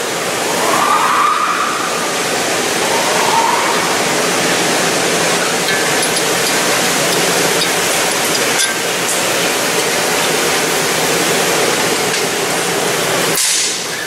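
Steady loud hiss of workshop noise, with a few light metal clicks as a wheel hub bearing is handled on the steering knuckle.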